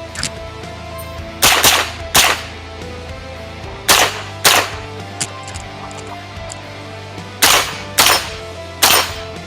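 .22 LR rifle shots fired in a timed stage, mostly in quick pairs about half a second apart with pauses of a second or more between pairs.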